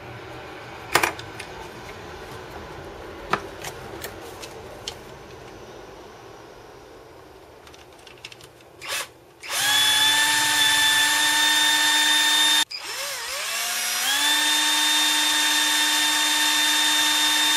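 Black & Decker cordless drill boring into an old phonograph pickup cartridge clamped in a bench vise. After a few handling clicks the drill starts about nine seconds in and runs at a steady whine for about three seconds. It stops for a moment, then spins back up to a steady whine that lasts to the end.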